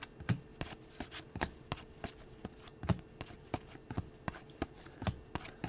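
Trading cards being flipped through by hand, one after another: a quick, irregular run of sharp little clicks and snaps, about four a second.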